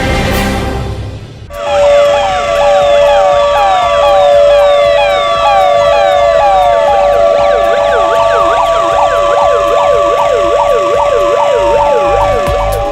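Several sirens sounding together, starting about a second and a half in after a short bit of music: quick repeated rising-and-falling sweeps layered over slower wails and a steady tone.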